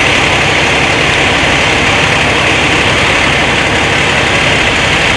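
A heavy vehicle's engine idling steadily, a loud even noise with a hiss on top and no change.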